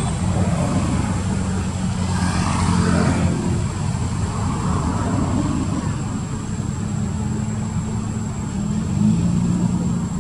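A steady low mechanical drone, like a motor running, with a thin, steady high-pitched whine above it.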